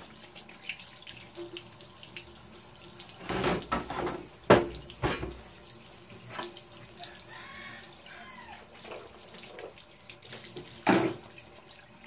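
Kitchen faucet running steadily into a stainless steel sink as raw chicken parts are rinsed under the stream. A few sharp knocks against the sink break through, the loudest about four and a half seconds in and another near the end.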